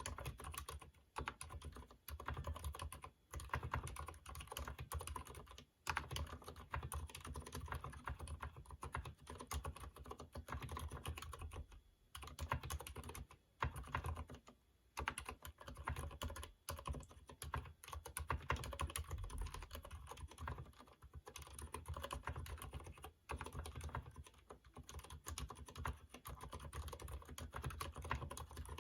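Steady typing on a Durgod mechanical keyboard with stock, unlubricated Cherry MX Silent Red linear switches: a dense run of keystrokes broken by a few brief pauses.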